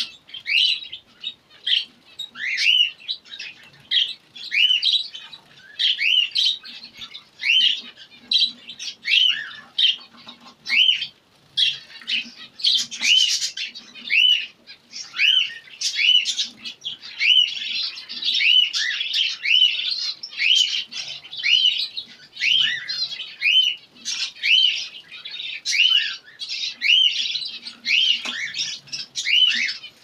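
Caged zebra and Bengalese finches calling: short, arched chirps repeated about once or twice a second, with denser overlapping calls about halfway through.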